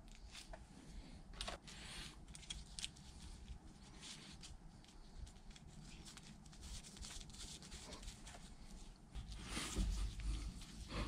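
Faint scattered clicks and taps of steel parts being handled as the ball crank handle and its nut are fitted on the end of a Bridgeport mill's table. It gets louder near the end with clatter as a ratchet wrench is brought to the nut.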